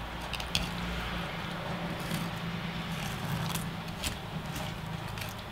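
Fillet knife working through a walleye on cardboard: a few faint clicks and scrapes scattered over a steady low hum.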